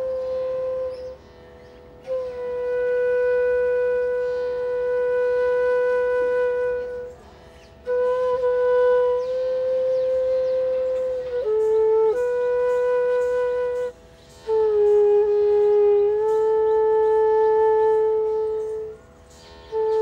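Background music: a solo flute playing long, slow held notes, with short breaks between phrases and a few quick pitch steps between the notes.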